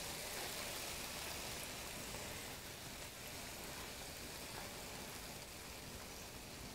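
Steak bites frying in a pan: a steady, gentle sizzle that fades slightly.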